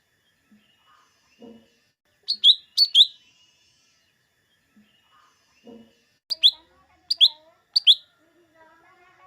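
Lesser green leafbird (cucak ijo mini) calling: loud, sharp whistled notes that sweep steeply downward, a pair about two and a half seconds in and then a run of three.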